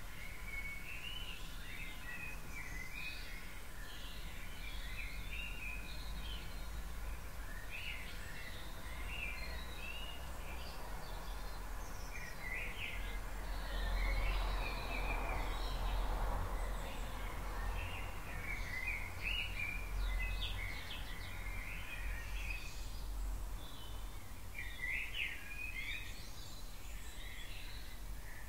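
Dawn chorus of songbirds: several birds singing short, varied, overlapping phrases throughout, over a steady low rumble. A wash of distant noise swells and fades in the middle.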